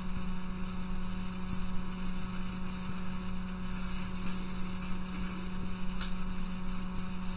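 Steady electrical mains hum, a low buzz with hiss on the microphone line, and one faint click about six seconds in.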